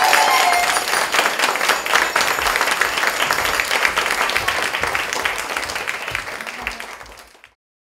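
Audience applauding at the end of a dance performance, a dense patter of many hands clapping; it thins out near the end and cuts off.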